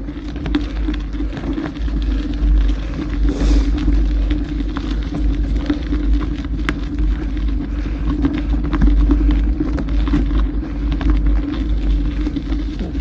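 Mountain bike ridden on a gravel forest road: wind buffeting the microphone with a steady low rumble, over a constant crackle of small clicks and rattles from the tyres and bike.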